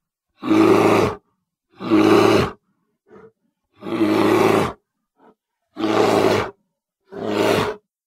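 Sound-effect roars made for the extinct short-faced bear (Arctodus): five short, deep, growling roars, each under a second long, about one every second and a half, with dead silence between them and two faint short grunts in the gaps.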